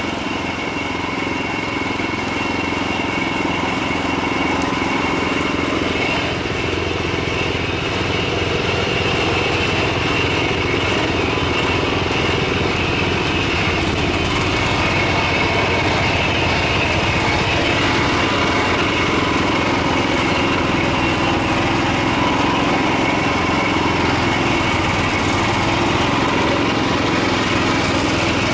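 Garden tractor's small engine running steadily under load while climbing a slight incline, its level rising a little a few seconds in and then holding even.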